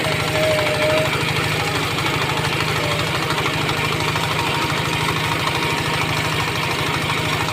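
KL 160 vertical pellet mill running steadily, with a fast, even knocking rhythm over a low mechanical hum.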